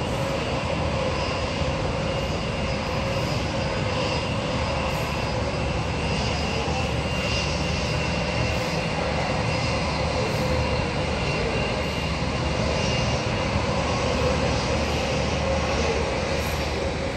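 Airplane engines running steadily: a constant whine over a broad rumble, level throughout.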